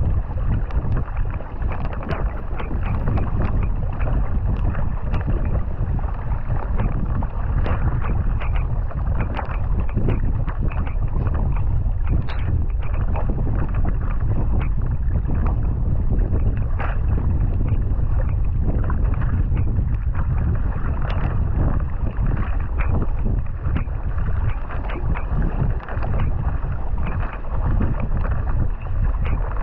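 Kayak paddle blades splashing into the water, stroke after stroke on alternating sides, over water rushing past the hull, with wind buffeting the microphone.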